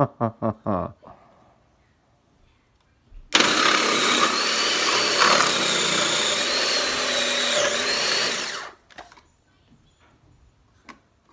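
Food processor running with its grating disc, shredding chunks of acorn squash pushed down the feed tube: a loud steady grinding rush with a high motor whine that wavers in pitch. It starts about three seconds in and cuts off after about five seconds.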